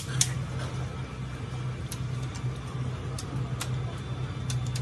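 Scattered metal clicks from a wrench working on a six-cylinder diesel engine's cylinder head. Two sharp clicks come right at the start, then single clicks about every half second to a second, over a steady low hum.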